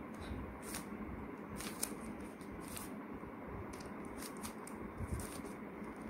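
Stickerless plastic 3x3 Rubik's cube being turned by hand: a run of faint, irregular clicks and clacks as its layers are twisted round in quick succession.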